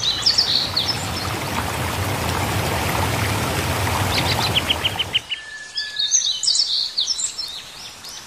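Rushing, splashing water with small birds chirping and trilling over it. The water cuts off abruptly about five seconds in, leaving only birdsong with a brief steady whistle.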